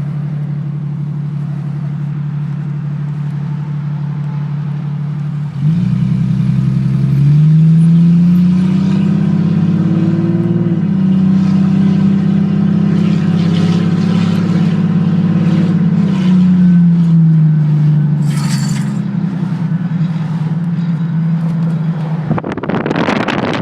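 Jeep XJ with no catalytic converter and no muffler: the raw, unmuffled exhaust idles steadily, then engine speed jumps about six seconds in, stays up for around ten seconds, and falls back to idle. Near the end a loud rushing noise takes over.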